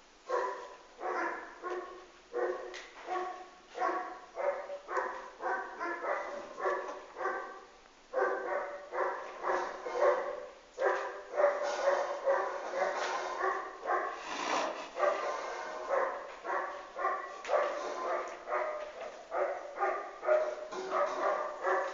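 Horse squealing over and over in short, high-pitched calls, about two a second at first, then coming thicker and running together from about eight seconds in.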